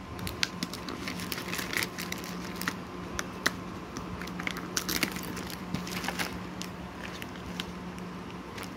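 Stiff clear plastic blister packaging crackling and crinkling as fingers handle it, a run of irregular sharp clicks, thicker in the first half and thinning out after.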